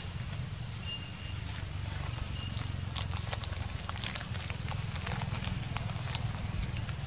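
Scattered light clicks and crackles of branches and leaves as macaques shift about in a tree, thickest in the middle seconds, over a steady low rumble, with a couple of faint short high peeps early on.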